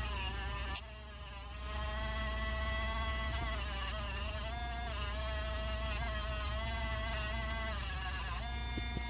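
Small high-speed rotary tool running with a Scotch-Brite pad against a die-cast metal car body, a steady whine whose pitch wavers slightly as it is worked. It dips and quiets briefly about a second in, then picks back up.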